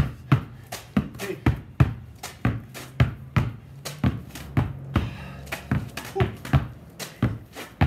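Two basketballs pounded hard on a concrete driveway: a rapid, uneven run of sharp thuds, two or three a second.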